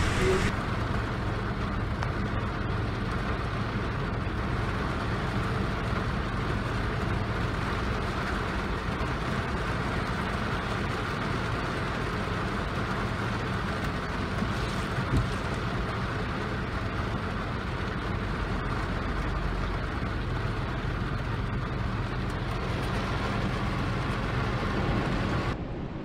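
Steady rain on a car's windshield heard from inside the car, with a low steady hum of the vehicle underneath.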